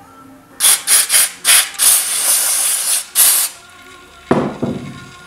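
Hissing spray in four or five short bursts and then a longer spray, as the stripped diesel injector's parts are sprayed clean, followed by a brief clatter near the end.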